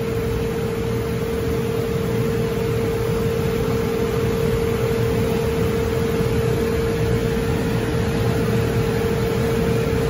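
Liebert precision air-conditioning unit running: a steady rush of fan and machinery noise with one constant mid-pitched hum.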